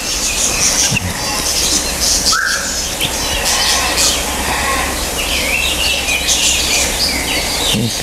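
Parrots chirping, with many short high calls overlapping and one lower rising call about two seconds in, over a steady low hum.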